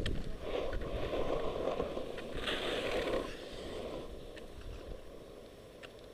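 Skis sliding and scraping over packed snow, with wind rushing on a helmet-mounted microphone; louder for the first three seconds, then easing off.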